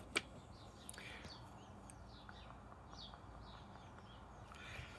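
Faint chirping of a small bird, a run of short falling notes, with a single sharp click near the start.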